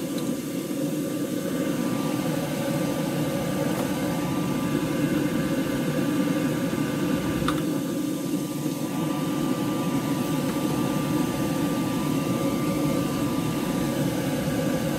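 Paint spray booth's exhaust fan running with a steady hum, with a single sharp click about halfway through.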